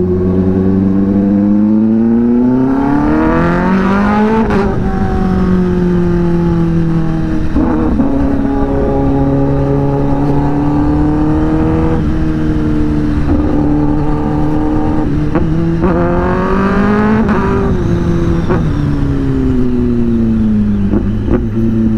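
Kawasaki ZX-10R's inline-four engine through an SC-Project aftermarket exhaust, accelerating hard through the gears. The pitch climbs and drops sharply at each of several upshifts, then falls as the bike slows near the end.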